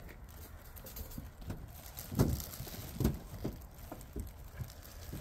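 Dull thumps and knocks as tent parts are shifted about in a shipping crate: about five in two seconds, starting about two seconds in, the first the loudest.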